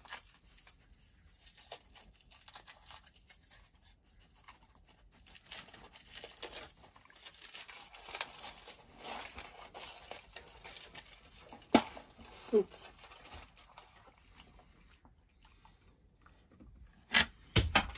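Foil wrapper crinkling and tearing as a dog's chocolate Easter egg is unwrapped, with the dog nibbling and licking at it. Two sharp clicks come about twelve seconds in, and a few louder knocks near the end.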